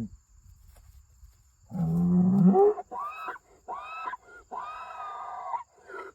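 A bull bellowing with a broken, squeaky voice. About two seconds in, a low call cracks upward into a higher squeal. It is followed by several shorter high-pitched calls. The owner calls it a broken "squeaker".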